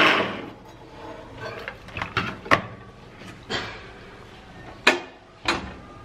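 Hard plastic clunks and knocks as a blender jar is twisted off its motor base and lifted away, about five sharp knocks over several seconds. It opens with a brief loud rush that fades within half a second.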